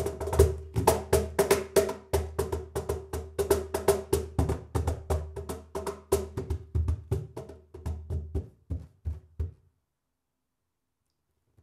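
Schlagwerk CP107 X-one 'Fingerprint' cajon played with bare hands in a fast groove of deep bass strokes and sharp slaps on the front plate, the wooden box ringing after each hit. The playing grows softer and stops about nine and a half seconds in.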